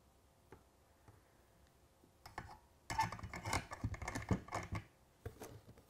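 Plastic model railway track and its dropper wires being handled on a cork-covered board. A few faint ticks, then a dense clatter of light plastic clicks and rustling about three seconds in that lasts nearly two seconds, and a shorter bout near the end.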